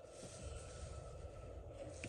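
Faint squeaky noise with a low rumble behind it, which the listener puts down to somebody's car outside. It builds in the first half second and fades out at the end.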